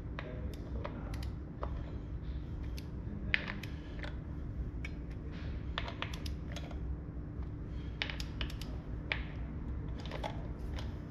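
Torque wrench ratcheting in short, irregular runs of sharp clicks as the primary cover screws on a Harley-Davidson Dyna are torqued to spec, over a steady low hum.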